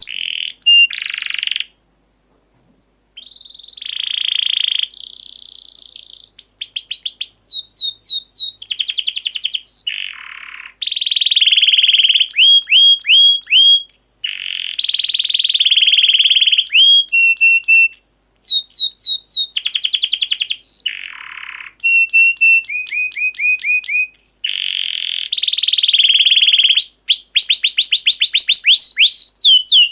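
Canary and lovebird song: long, varied phrases of rapid trills and quickly repeated sweeping whistles, with short pauses between phrases. The birds fall silent for about a second and a half near the start.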